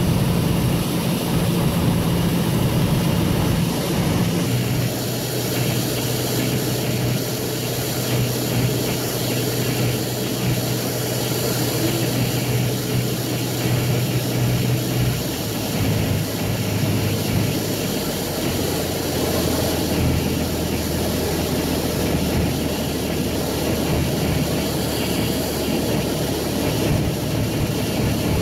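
Single-engine Cessna's piston engine and propeller droning inside the cockpit over steady cabin and wind noise. The engine note steps down in pitch three times, a few seconds in, about halfway and again soon after, as power is brought back on the landing approach.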